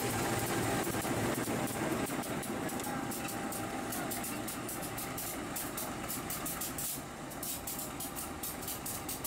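Diesel locomotive of a ballast train running at idle, a steady engine hum, with a rapid irregular crackling over it from about three seconds in.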